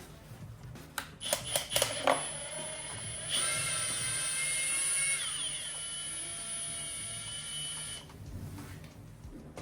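Power drill with a Phillips bit undoing a screw: a few clicks and knocks as it is set in place, then the drill motor whines steadily for about four and a half seconds, its pitch dropping partway through, and stops.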